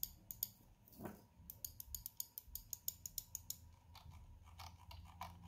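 Corsair Katar Pro XT gaming mouse buttons, with Quickstrike mechanical switches, clicked over and over at about five clicks a second. The clicks are light and quiet.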